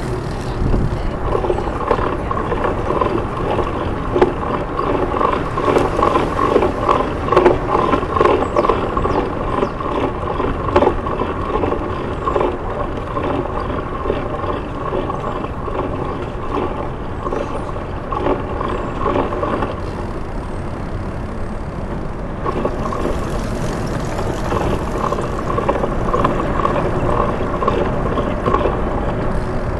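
Steady street noise from a Citi Bike riding through city traffic: road and tyre rumble with the hum of passing vehicles and a light rattle.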